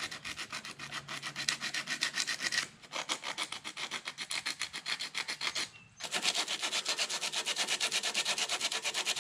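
Rapid back-and-forth scrubbing with an abrasive, about five strokes a second, briefly pausing twice. The ignition parts of a mini bike engine that has no spark are being cleaned: the magneto's coil and the flywheel magnet.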